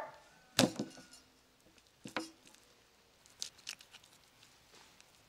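A whole raw lamb carcass thuds down onto a wooden table about half a second in, followed by a second, lighter knock about two seconds in. A knife then cuts into the raw lamb leg with a few short, sharp clicks.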